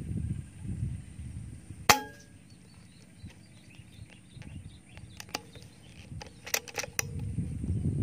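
A single air-rifle shot about two seconds in: a sharp crack with a short metallic ring. A few softer clicks follow later, with wind rumbling on the microphone at the start and end.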